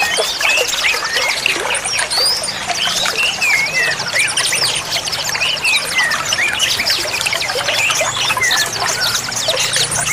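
Many small birds chirping and whistling over trickling water. A fast high rattling trill comes in every couple of seconds.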